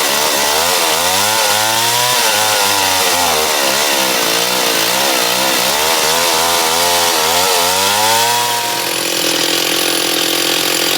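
Gas chainsaw engine running, its pitch rising and falling again and again as the throttle is worked, then holding steadier near the end.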